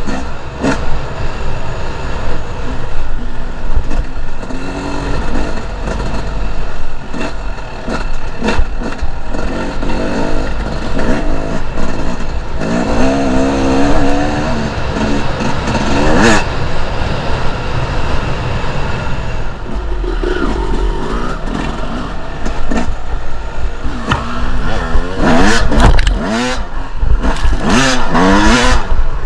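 Two-stroke enduro dirt bike engine revving up and down as it is ridden off-road, the pitch rising and falling with each burst of throttle, with frequent knocks and rattles from the bike over rough ground.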